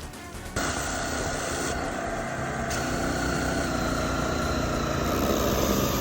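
Pressure washer running and spraying a transmission case, starting abruptly about half a second in: a steady machine whine that sinks slightly in pitch, over the hiss of the water jet.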